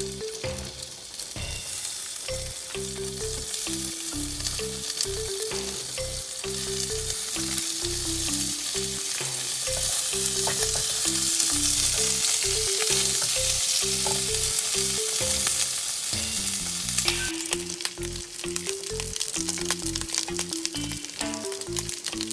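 Food frying with a loud, steady sizzle that peaks midway and eases off about three quarters of the way through, with background music playing a stepping melody underneath.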